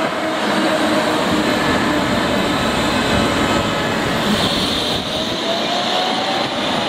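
Low-floor articulated electric tram passing close by on street track and running away round a curve: a steady rumble of wheels on rail. A faint whine rises in pitch near the end, and a higher hiss of rail noise comes in about four seconds in.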